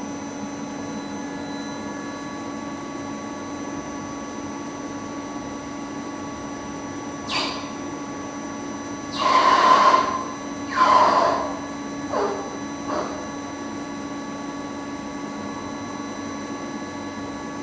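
CNC lathe with its spindle running, a steady hum, while the tool faces the end of the workpiece: a short burst of cutting noise about seven seconds in, two louder bursts of about a second each a little later, then two brief falling squeals.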